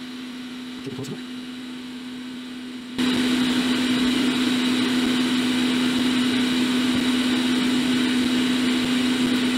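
Electric fan or blower of the heating and rework equipment running with a steady hum and one strong tone. It steps up clearly louder about three seconds in, as if switched to a higher speed.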